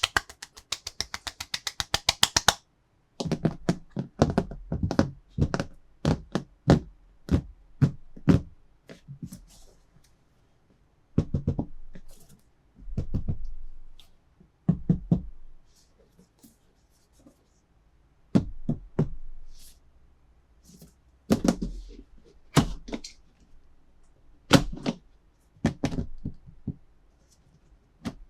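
Plastic toy cars and their packaging being handled on a hard surface: a quick rattling run of clicks at the start, then irregular knocks and thunks.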